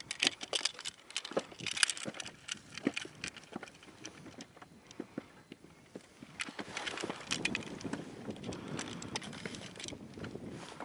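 Irregular knocks and clicks of things being handled in a fishing boat, busy at first, quieter for a few seconds midway, then busy again with a low rustle under them.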